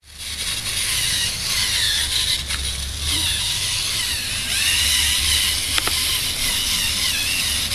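LEGO Mindstorms NXT servo motors and gear trains whining as the Off-Roader robot drives over rough ground, the whine wavering up and down with the load, with a few sharp clicks.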